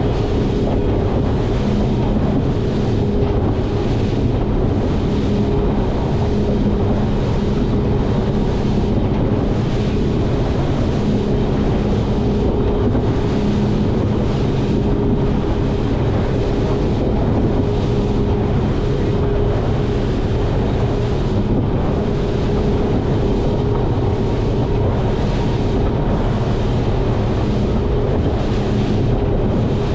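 Grady-White 336 Canyon running at speed: the outboard engines hum steadily under a constant rush of wind on the microphone and water along the hull.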